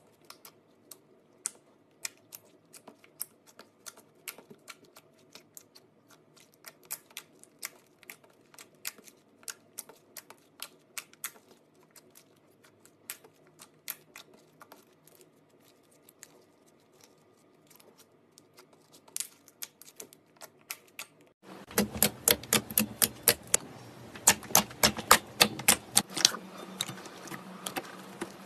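Glossy slime being squeezed and pressed by hand, giving a run of small sharp clicking pops. About 21 seconds in, the clicks grow louder and come much faster.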